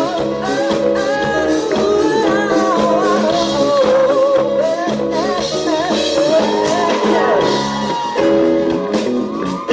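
Live rock band playing an instrumental break, with guitars, bass and drums under a wavering lead melody.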